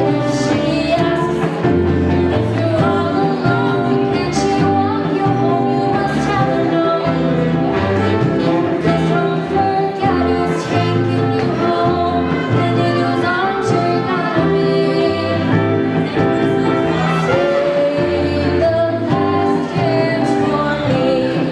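A school jazz big band playing live, saxophones and brass over a stepping bass line and drums, with a female vocalist singing.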